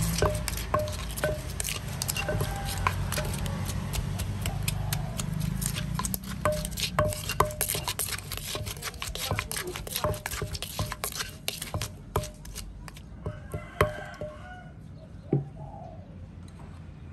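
Wooden pestle pounding bamboo shoots and chillies in a clay mortar: a quick run of dull knocks, several a second, with the plastic spoon turning the shoots against the mortar's side. The pounding thins out to a few single knocks near the end, as the spoon takes over the mixing.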